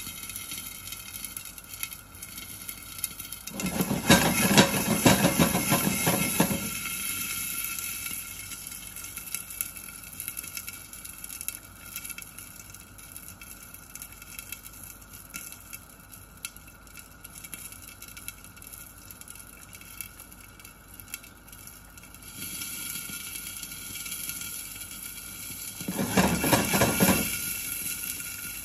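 Hot oil sizzling and crackling around popcorn kernels in a glass-lidded pan on a gas burner, before the kernels have begun to pop. Two louder rattling spells break in, one a few seconds in and one near the end.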